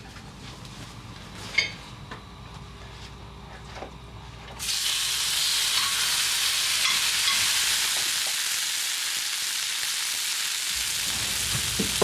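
Food sizzling in a frying pan, starting suddenly about halfway through and running on as a loud, even hiss. Before it, quieter kitchen handling with one sharp click.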